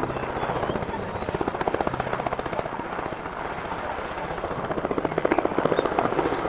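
Bell UH-1 "Huey" military helicopter running on the ground or at low hover, its two-bladed main rotor beating in a rapid, even chop over turbine noise, a little louder near the end.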